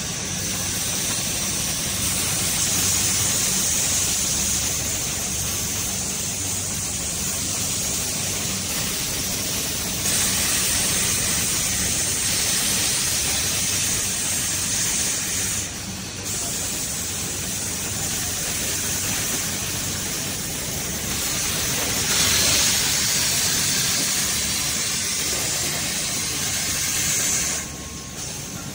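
Steady hissing din of wok-casting machines on a foundry floor, with a low machine hum underneath. The level steps up and down a few times.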